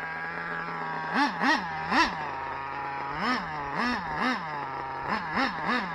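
Two-stroke nitro glow engine (Dynamite .26 with a Dynamite tuned pipe) of a Kyosho Inferno ST RC truck idling, with repeated short throttle blips, each a quick rise and fall in pitch. There are three blips about a second in, a pause at idle, then a run of further blips from about three seconds on.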